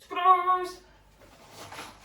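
A person's voice giving one short high note, held at a steady pitch for about half a second. A faint scraping rustle follows near the end.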